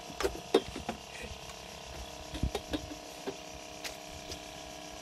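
A steady mechanical hum with scattered light clicks and knocks.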